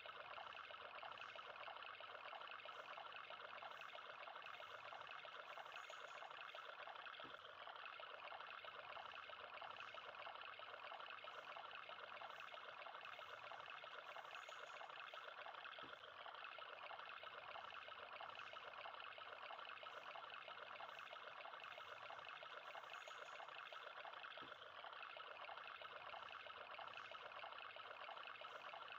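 Faint, steady trickle of water pouring from a thin pipe into the small tank of a toy tubewell model.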